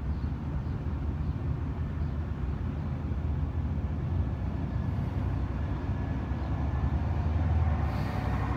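Steady low rumble of street traffic, growing slightly louder near the end.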